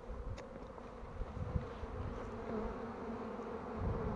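Honeybees buzzing in flight around the hive entrances, a steady hum of many bees together. It is the busy sound of colonies working hard.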